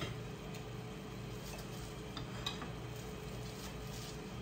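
A kitchen knife tapping a cutting board as green onions are chopped: a few irregular light taps, the sharpest about halfway through, over a steady low hum.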